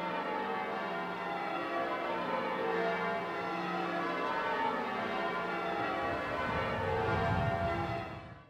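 Church bells ringing, many overlapping strikes that hang and blend together, then fade out quickly near the end.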